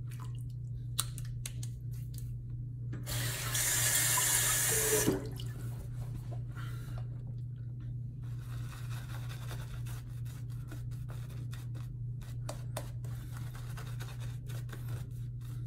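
A water tap runs for about two seconds, starting about three seconds in. After that comes the faint, quick swishing of a boar-bristle shaving brush as it works lather over the face, with a steady low hum underneath.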